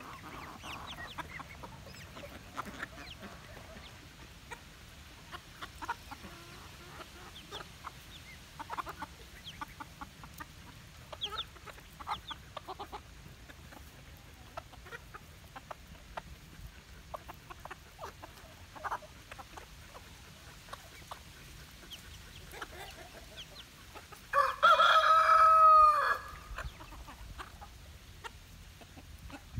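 Backyard chickens clucking softly on and off as they feed. About twenty-four seconds in comes one loud, sustained rooster crow lasting about two seconds.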